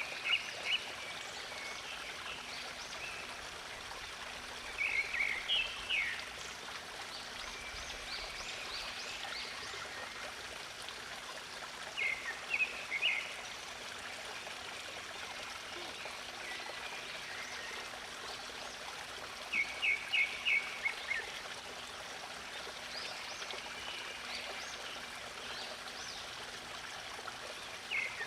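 Steady flowing water like a small stream, with a songbird singing short phrases of quick high chirps about five times, several seconds apart.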